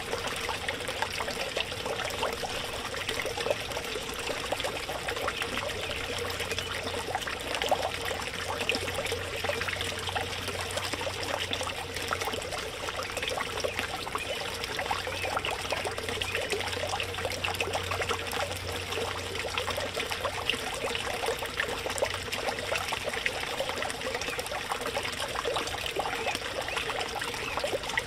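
Backyard pond fountain splashing and trickling steadily as its spray falls back into the water.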